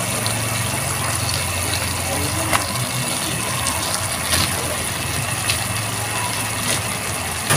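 A steady low hum, like a motor running, goes on throughout. A few light clicks come over it as eggplant slices are laid into a metal wok.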